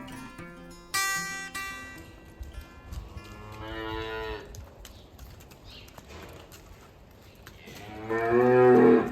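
Dairy cow mooing twice: a moderate moo about three and a half seconds in, then a louder, longer moo near the end.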